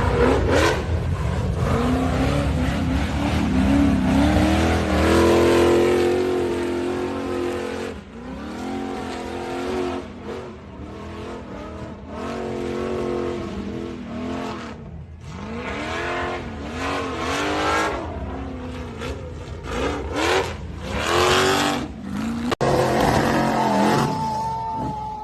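Off-road vehicle engine revving hard, its pitch climbing and dropping again and again, with rough noise from the tyres and ground.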